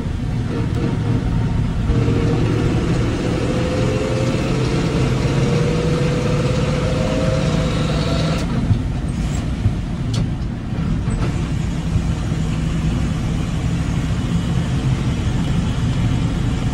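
1957 Chevrolet Task Force 3800 truck under way, its engine running steadily with a slowly rising pitch as it accelerates from about two seconds in. About eight and a half seconds in the rise breaks off as the engine eases off, and it runs on steady.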